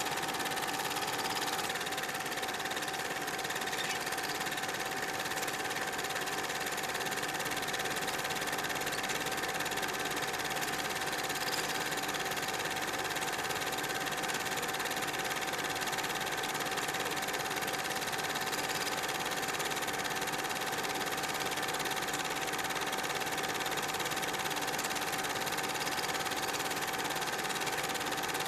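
Super 8 film projector running: a steady mechanical whir with a constant hum, unchanging throughout.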